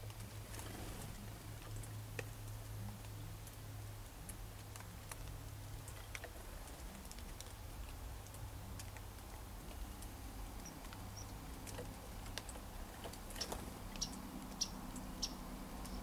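Chickadee pecking at seed in a wooden platform feeder: scattered light taps, several sharper ones near the end, over a steady low hum.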